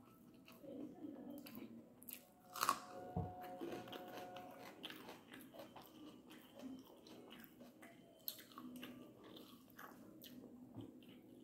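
Close-up eating sounds: a person chewing and smacking mouthfuls of idiyappam (string hoppers) eaten by hand, with many small wet clicks. A louder knock comes about two and a half seconds in.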